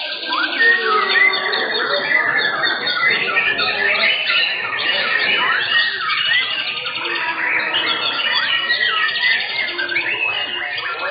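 Several white-rumped shamas (murai batu) singing at once: a dense, unbroken tangle of loud whistles, trills and chattering phrases overlapping one another.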